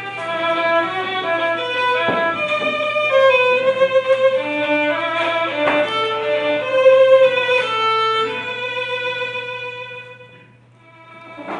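Violin music playing a melody of single bowed notes, fading out near the end, over a low steady hum.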